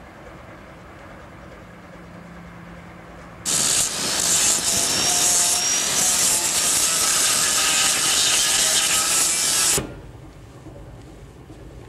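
Handheld corded power tool run against the underside of a fibreglass catamaran hull, starting abruptly about three and a half seconds in, running loud and steady for about six seconds, then cutting off.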